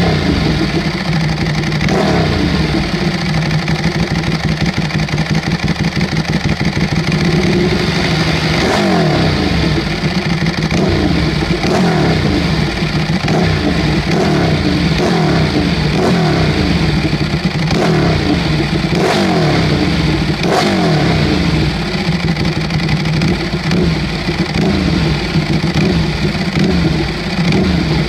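Ducati Streetfighter 1098 S's L-twin engine running through a custom hand-made exhaust with the dB killer fitted, idling and then blipped repeatedly. From about a third of the way in, the revs rise and fall back quickly several times before it settles to idle again.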